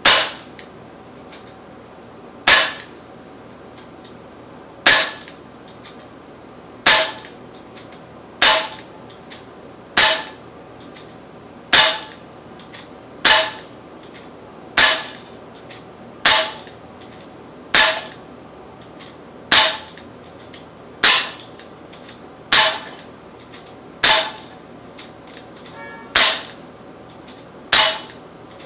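Sig Sauer M17 .177 CO2 blowback pellet pistol firing steadily into a pellet trap: seventeen sharp cracks, about one every one and a half to two seconds, each with the slide cycling back.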